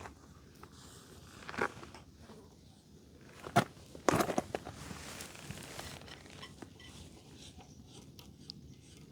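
Quiet handling of zip ties and washers while fastening a yurt wall: scattered small clicks and scrapes, with a sharper click about three and a half seconds in and a short run of clicks just after.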